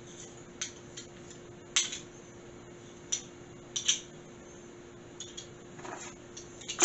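Measuring spoon clinking and tapping against the sugar container and bowl while sugar is scooped out: uneven light clicks, the loudest near the end, over a faint steady hum.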